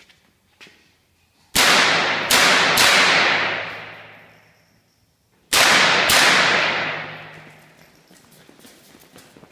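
Shots from an AR-style Smith & Wesson .22 rimfire semi-automatic rifle: three quick shots about a second and a half in, then two more a few seconds later. Each shot rings on in a long echo off the range walls.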